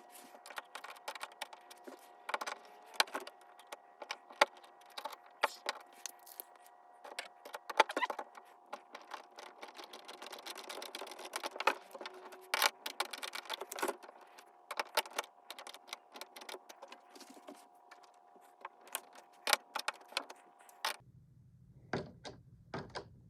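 Brass pipe fittings and hardware clicking and rattling at irregular intervals as a closet door knob is assembled and threaded together by hand, over a faint steady hum that stops near the end.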